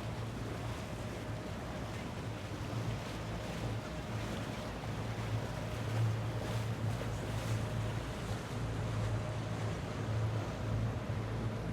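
Boat engine running steadily with a low hum, under a wash of water and wind noise.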